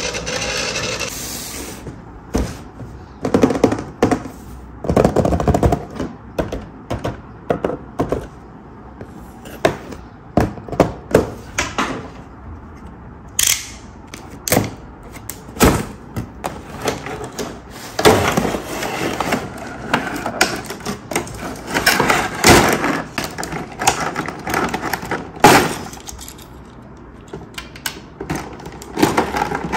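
Cardboard box and plastic toy packaging being handled and opened: a run of separate clicks, knocks, crackles and tearing. A brief steady noise comes first, stopping after about a second and a half.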